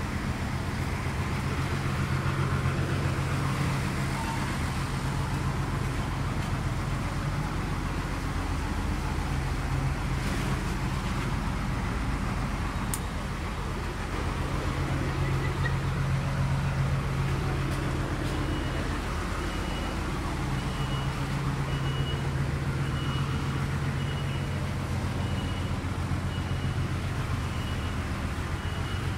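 Vehicle engine idling steadily in street traffic. A little past halfway, a high electronic beep starts repeating about once a second.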